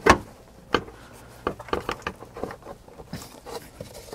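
Plastic air cleaner housing of a 2013 Chevrolet Avalanche being jerked upward to pop its mounting pins out of their rubber grommets: a string of sharp plastic knocks and rattles, the loudest right at the start.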